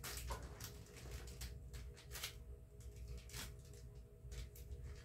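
Faint, irregular crinkling and rustling of a plastic freezer bag as hands press the air out around a raw chicken breast, over a faint steady hum.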